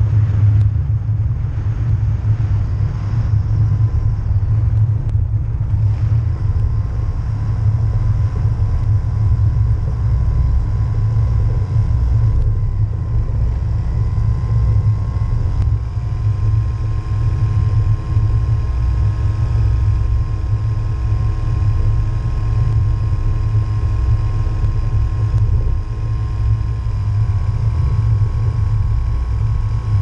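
The Rotax 503 two-stroke twin of a FlySynthesis Storch ultralight idling with its propeller turning, under a heavy low rumble of wind on the microphone. About halfway through the engine note dips briefly, then settles a little higher and steady.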